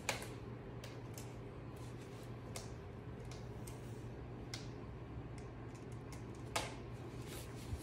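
Irregular sharp clicks and taps from cats' paws and claws on rubber floor mats during a play fight, the loudest just after the start and another about six and a half seconds in, over a steady low hum.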